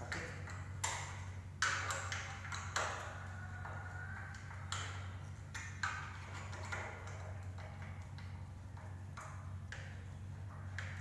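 Phillips screwdriver driving a screw into the metal bracket of an aluminum door frame, giving scattered metallic clicks and ticks, a few of them sharper. A steady low hum runs underneath.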